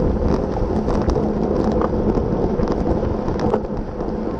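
Wind rushing over the microphone of a camera riding along on a racing bicycle at speed, with steady road rumble and scattered light rattling clicks.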